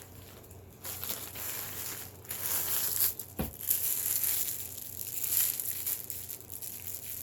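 Packaging being torn open and crinkled by hand, an uneven rustling and tearing, with one sharp knock partway through.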